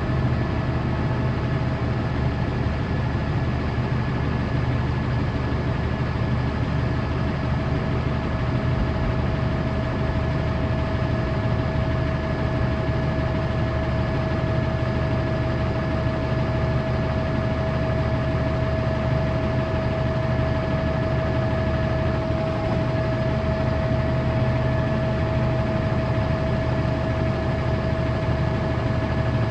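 Engine of a piece of industrial equipment idling steadily, with a constant high whine over the low rumble.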